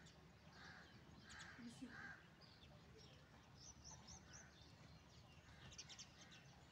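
Faint bird calls over near silence: a few short calls in the first two seconds, then runs of quick high chirps around the middle and again near the end.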